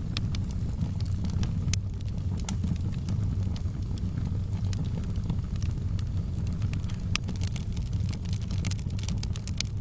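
Wood fire in a fireplace crackling: sharp pops and snaps scattered over a steady low rumble, the pops coming thicker near the end.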